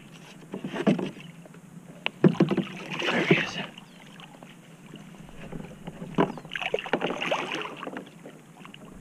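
Water splashing in three short bursts beside a kayak as a hooked redfish thrashes at the surface during the fight, with a few sharp slaps among the splashes.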